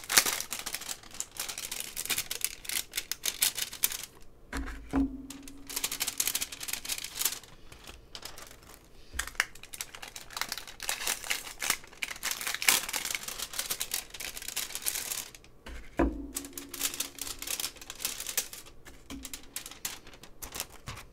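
Clear plastic sleeves crinkling and crackling as enamel pins on backing cards are pulled out and handled: a dense, irregular rustle with a few brief lulls.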